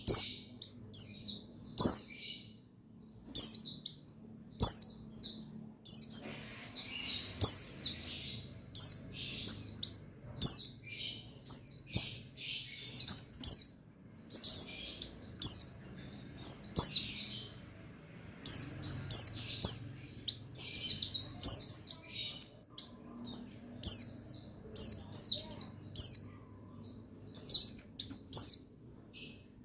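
A group of buxtoni white-eyes (pleci) twittering: rapid, high chirping phrases one after another with short gaps, some overlapping. A faint low hum lies underneath.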